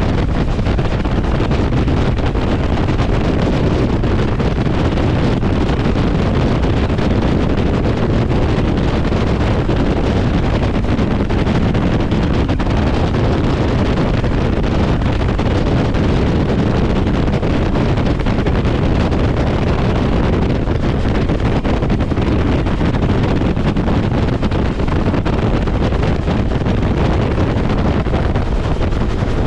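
Bell UH-1 Huey helicopter in low flight, heard from inside the cabin: steady, loud rotor and engine noise with heavy wind buffeting the microphone.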